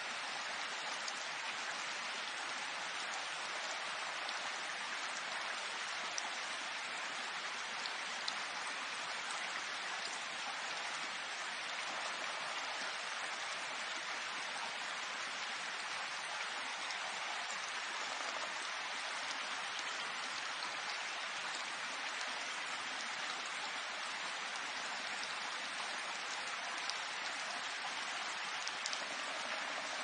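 Steady rainfall: an even hiss of rain with a few louder single drops ticking here and there.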